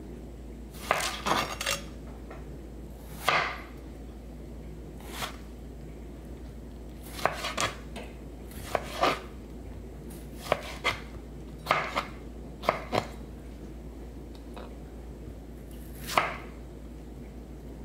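Kitchen knife slicing a tomato on a plastic cutting board: a series of irregular cuts, each ending in a sharp knock of the blade on the board, sometimes two in quick succession.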